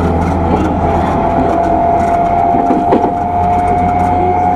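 Running sound heard inside an E217-series electric train's motor car with renewed traction equipment. A steady traction-motor whine rises slowly in pitch as the train gathers speed, over the rumble of wheels on track.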